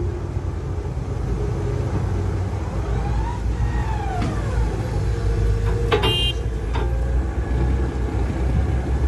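Excavator and dump truck diesel engines running, a steady low rumble, while the Komatsu HB205-1 hybrid excavator digs and swings. A rising-then-falling whine comes a few seconds in, and about six seconds in a sharp metallic clank with a brief ringing tone.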